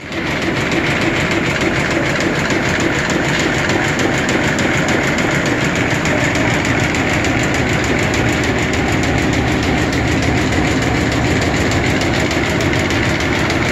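Narrow-fabric tape machine running at speed while making striped tape, with a steady, rapid mechanical clatter.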